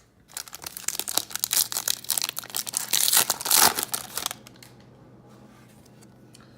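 A 2018 Contenders football card pack's wrapper being torn open and crinkled: a dense crackling that lasts about four seconds, loudest near its end, then stops.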